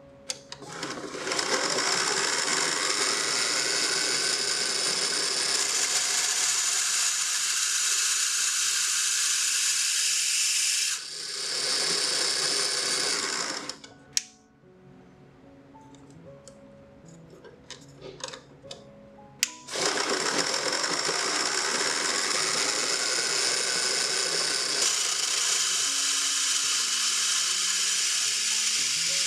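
Small 3D-printed band saw spinning up with a rising whine, then running with a steady hiss while its blade cuts a small metal bar. It stops about 14 seconds in and starts again about 6 seconds later, rising back up to speed.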